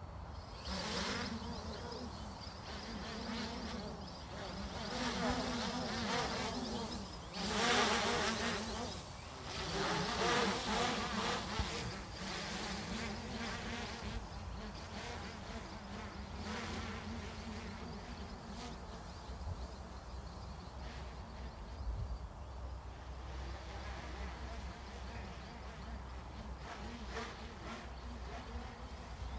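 Custom-built multirotor drone's propellers buzzing as it lifts off and climbs away, starting about a second in. The pitch wavers up and down as the motors throttle, loudest in the first third, then fainter and steadier as the drone rises higher.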